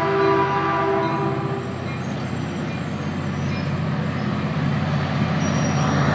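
Passenger train's horn sounding a steady chord, cutting off about a second and a half in, followed by the train's steady running rumble and rail noise as it passes.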